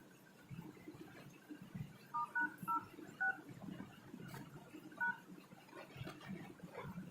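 Smartphone keypad dialing tones (DTMF): four short beeps in quick succession, then one more about two seconds later, as a number or code is typed on the Redmi 3s dialer.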